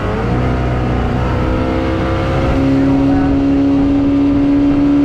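Mercury 115 outboard motor running a boat at speed. Its pitch climbs over the first couple of seconds as it revs up, then holds steady, over the rush of water and wind.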